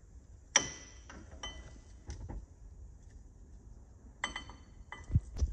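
Vauxhall Corsa front brake pads being pulled out of the caliper carrier: a few sharp metallic clinks with a brief ring, one about half a second in and a cluster about four seconds in, as the steel backing plates knock against the carrier and each other.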